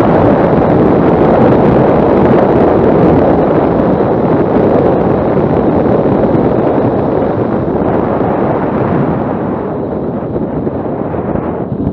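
Wind buffeting the microphone of a camera on a moving motorcycle at road speed, a loud steady rush of noise. It grows quieter over the last few seconds.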